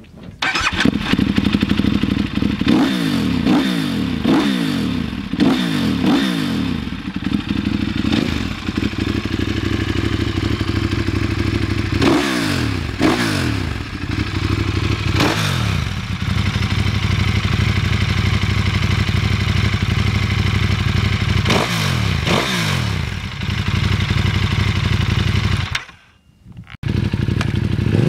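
KTM supermoto's RC8R V-twin with Superduke 1290 cylinders, breathing through an Akrapovic full titanium exhaust, catching suddenly and then idling between sharp throttle blips. Each blip jumps up and falls back to idle: five quick ones in a row early, then a few more in pairs and singly, with a break of about a second near the end.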